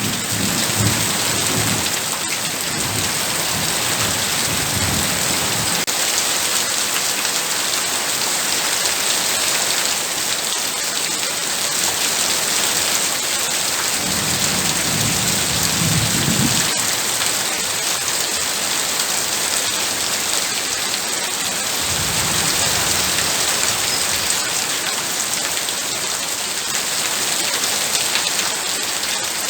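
Heavy rain pouring steadily, a dense even hiss. Low thunder rumbles swell three times: during the first few seconds, near the middle, and again about three quarters of the way through.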